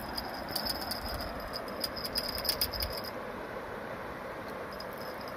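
Fishing reel clicking rapidly for about two and a half seconds while a hooked pike is played on the line, then stopping about three seconds in. A steady outdoor rushing noise runs underneath.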